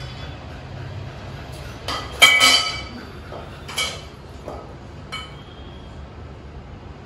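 Steel parts of an elevated dog cot clinking and knocking as they are handled: one loud ringing clank about two seconds in, then a few fainter clinks. A low steady hum runs underneath.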